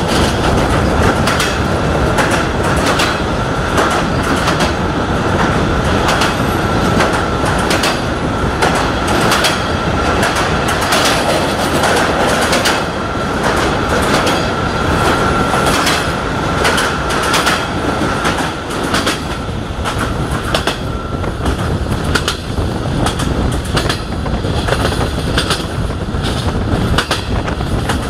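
Passenger train wheels clicking over rail joints, heard from a carriage window while the train runs through a tunnel and out into the open. A steady high-pitched squeal runs over the clatter from about a second in until about two-thirds of the way through.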